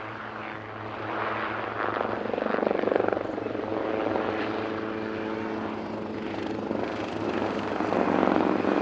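Two Hughes 269 / HKP 5B (Schweizer 269C) light helicopters flying, their piston engines and rotors making a steady drone that swells louder about two to three seconds in and again near the end as they pass.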